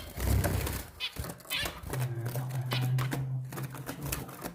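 Zebra finches calling with short nasal calls in their cage, over repeated clicks and rustling from a phone being moved among them, with a steady low hum through most of it.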